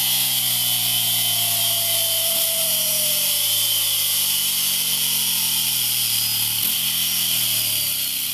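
Ducati Scrambler 800's air-cooled L-twin engine running through a MIVV GP slip-on exhaust, a steady note whose pitch slowly falls, with a strong hiss over it.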